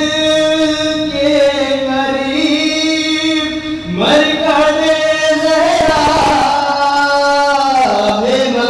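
Solo male voice chanting a noha, a Shia lament, in long drawn-out held notes. The pitch climbs about four seconds in and falls again near the end.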